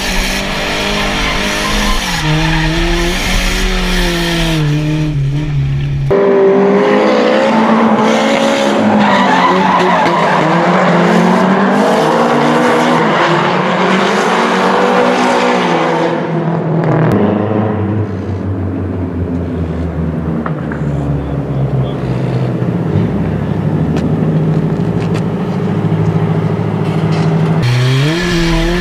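Nissan S13 drift cars' engines revving up and down hard through drifts, with tires screeching and skidding. The sound changes abruptly about six seconds in and again past halfway.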